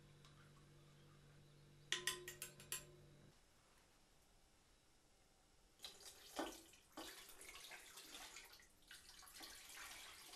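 Faint splashing and trickling of a thin, watery halva mixture being poured in uneven bursts from a glass bowl into a cooking pot, starting about six seconds in. Before that, a quick run of small clicks about two seconds in, and a steady low hum that stops about three seconds in.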